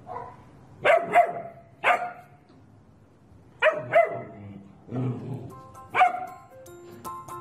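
German shepherd puppy barking: a run of short, sharp barks, several in quick pairs. Background music comes in near the end.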